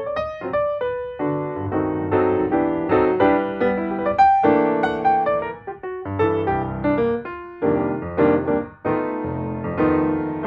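Background piano music, notes and chords played at a moderate pace.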